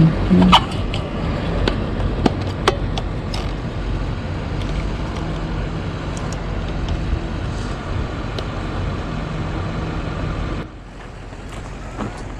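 Sharp metal clicks and knocks from a trail camera's steel security box being opened and handled, several in the first three seconds, over a steady low rumble with a faint hum. The rumble drops away abruptly about ten and a half seconds in.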